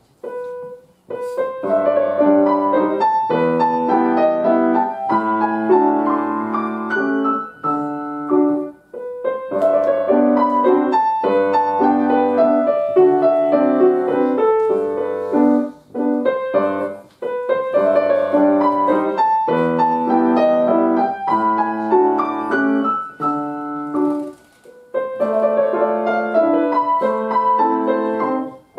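Solo grand piano playing a waltz: a melody over a steady accompaniment, in phrases set off by brief breaks every seven to eight seconds. It starts just after a short pause.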